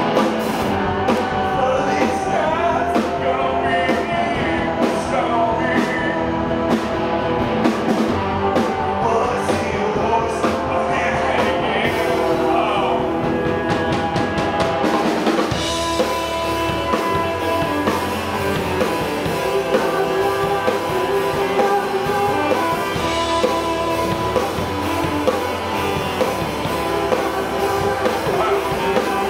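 Live rock band playing: a man singing over guitar, drum kit and keyboard, with a saxophone in the line-up. About halfway through the singing gives way to a steadier instrumental passage with held notes.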